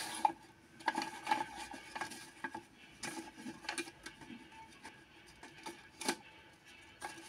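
White paper being handled and folded by hand: irregular rustles, crinkles and creases, with a sharper crackle about six seconds in.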